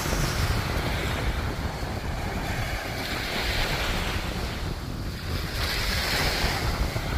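Ocean surf washing onto a sandy beach, with two waves swelling and fading about three and six seconds in, and wind buffeting the microphone.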